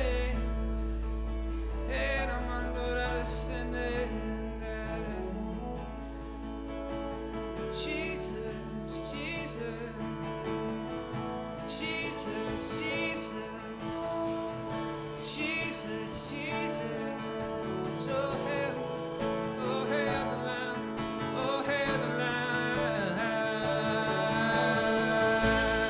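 Slow instrumental worship music with guitar over sustained chords.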